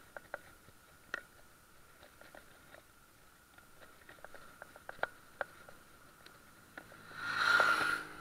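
Irregular light clicks and rattles from a bicycle rolling over tarmac, heard close to the bike, with a louder burst of noise that swells and fades about seven seconds in.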